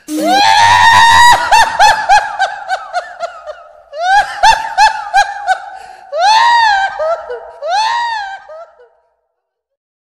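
High-pitched cartoon-style laughter sound effect: a long run of quick 'ha-ha' pulses, then three shorter bursts of laughing, stopping about a second before the end.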